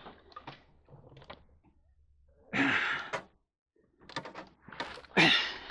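Light knocks and rattles of cables and equipment being handled while a power cable is fished through behind a crowded computer rack, with two short grunts of effort, one about two and a half seconds in and one near the end.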